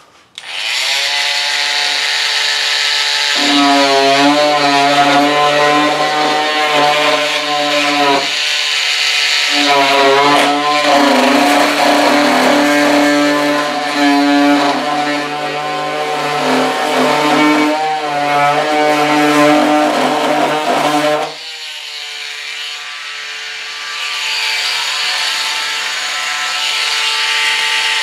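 Power cutting tool running under load while it cuts into the model jet's tail cone, its motor pitch shifting as it bites, with a short break about eight seconds in. After about 21 seconds it eases to a quieter, steadier running tone.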